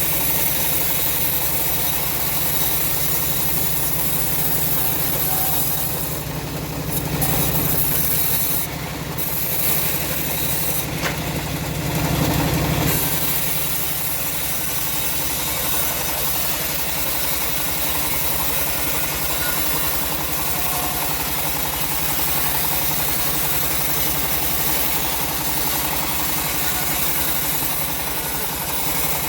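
Homemade bandsaw sawmill running under its engine, sawing teak, with a few short bursts of hiss in the first half. About thirteen seconds in the heavier, louder run drops away and the machine settles into a lighter, even running.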